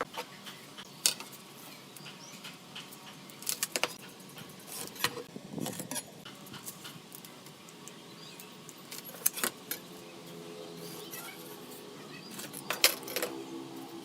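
Scattered sharp clicks and light knocks of small hard objects being handled, as in workshop work on a bench, with a faint wavering tone for a few seconds near the end.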